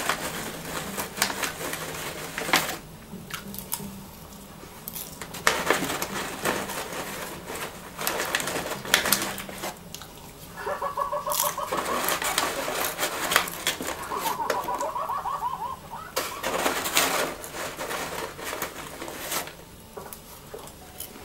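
Popcorn bag rustling and crinkling as a hand dips in, with popcorn being munched, in a run of short, sharp crackles. Twice around the middle, a warbling tone comes in for a second or two.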